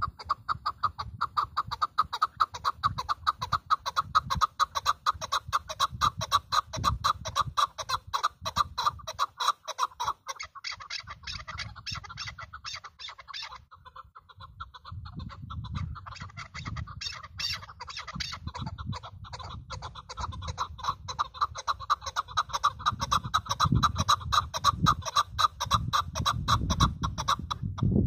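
Chukar partridge calling: a long run of rapid, repeated clucking "chuk" notes, breaking off for a couple of seconds about halfway through and then starting again.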